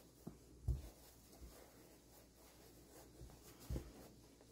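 Hands rubbing and pressing a cloth doll body stuffed with fiberfill and pellets, a soft fabric rustle with a few dull bumps, the clearest about a second in and near the end.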